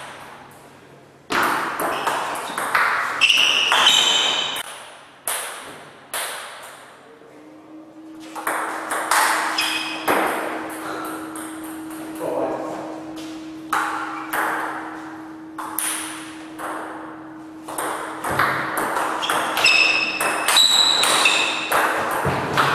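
Table tennis ball clicking back and forth between the bats and the table in rallies, with short pauses between points. There are a few short high squeaks along with the clicks.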